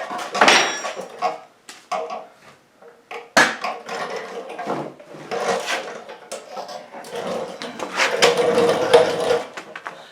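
Irregular clicks, knocks and rustling of things being handled close to the microphone. A few sharper knocks stand out, the loudest about three and a half seconds in.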